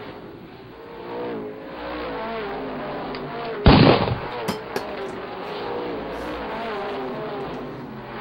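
Motor-race broadcast sound of race car engines, their pitch rising and falling as the cars run. About three and a half seconds in, a single loud, sudden noise cuts across it, followed by a couple of sharp clicks.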